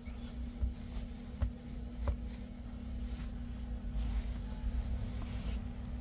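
A few faint taps and handling knocks from a handheld diagnostic scan tablet over a steady low hum and rumble.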